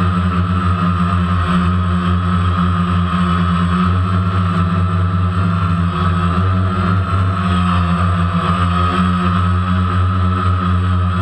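DJI Phantom quadcopter's four electric motors and propellers running steadily, recorded close up by the camera carried on the drone: a constant low hum with a higher whine above it.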